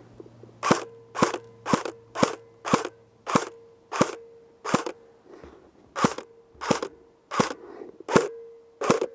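Airsoft gun firing single shots in steady succession, about thirteen sharp cracks at roughly one every half second or so.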